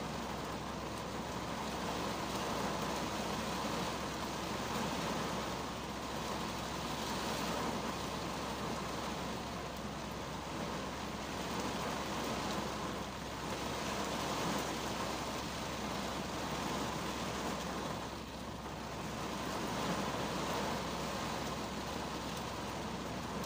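Rain falling on the roof and windshield of a 2010 Kia Cerato, heard from inside the car's cabin: a steady hiss that swells and eases every few seconds.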